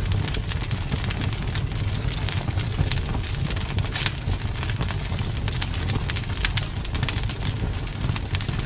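Wood fire in a fireplace crackling: frequent sharp snaps and pops over a steady low rumble of the flames, with one louder pop about four seconds in.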